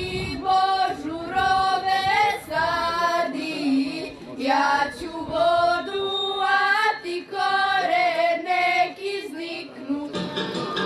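A small group of girls in Serbian folk costume singing a folk song unaccompanied into a microphone, in phrases of long held notes. Near the end, instrumental folk music takes over.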